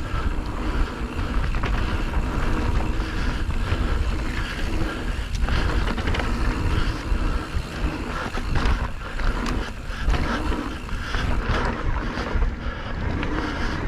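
Wind buffeting the microphone of a rider on a mountain bike moving along a trail, with frequent short knocks and rattles from the bike over rough ground.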